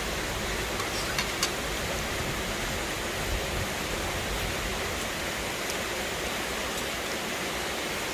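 A steady, even hiss with no tones in it, and a few faint clicks about a second in.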